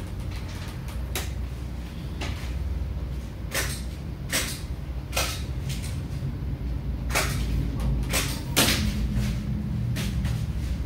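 About ten sharp clicks and knocks at irregular intervals over a steady low hum, like hard objects being handled and set down.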